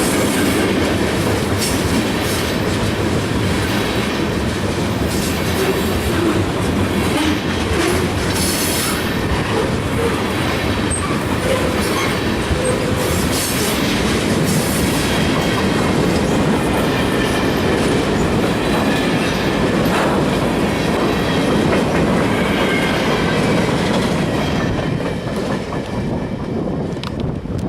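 CSX freight train's cars rolling past at close range: a steady heavy rumble of steel wheels on the rails, with scattered clicks and some faint wheel squeal. The rumble starts to die away near the end.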